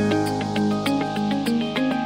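Background music: quick, evenly repeating notes over a held bass note.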